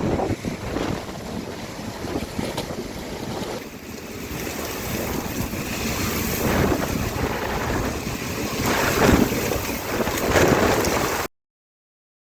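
Stormy rushing noise of gusting wind and surging water, swelling and easing in waves, that cuts off suddenly near the end.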